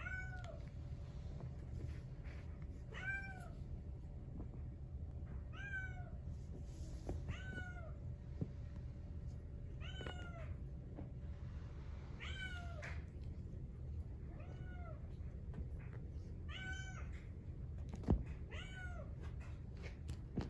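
Brown tabby-and-white Exotic Shorthair kitten meowing repeatedly: about nine high-pitched meows a few seconds apart, each rising then falling in pitch, over a steady low hum. A single sharp click sounds near the end.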